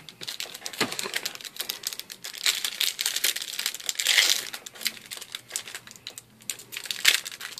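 Foil trading-card booster pack wrapper crinkling and crackling as it is handled and opened by hand, in irregular bursts that are loudest about four seconds in.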